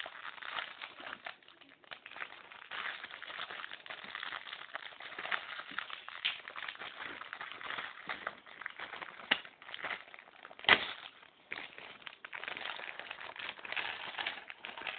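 Plastic packaging and small knockoff Lego-style plastic bricks being handled: irregular crinkling and rustling with many small clicks, and one sharper, louder click about eleven seconds in.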